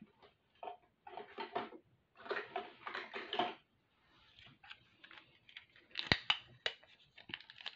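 Small objects being handled and rummaged through on a desk while a roll of Scotch tape is fetched: soft rustling at first, then a run of sharp clicks and knocks, the loudest about six seconds in.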